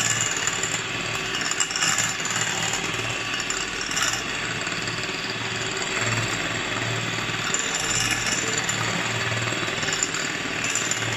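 Sanford electric hand mixer running steadily, its beaters whipping cream in a glass bowl.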